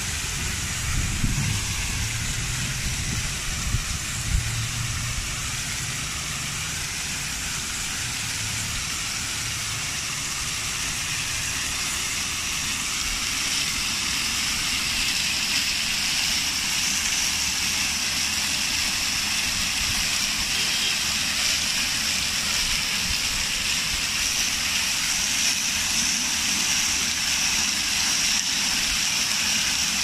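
Many vertical fountain jets splashing steadily down into stone basins and a pool, a dense hissing rush of falling water that grows a little louder after about twelve seconds. A few soft low thumps sound in the first few seconds.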